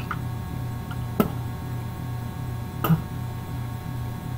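Steady low electrical hum with a faint regular pulse, with a few soft clicks spread through it.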